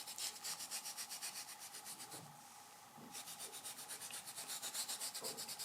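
Finely ground coffee being rubbed into the knife-cut kolrosing lines of a wild cherry wood teaspoon handle. The rubbing is faint, with quick rhythmic strokes at about six a second and a short pause a little past the middle.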